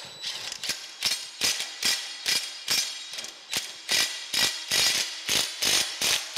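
Cordless impact driver hammering in short bursts, about two to three a second, as it turns the lead screw of a circa 1890 New Haven metal planer's cross rail.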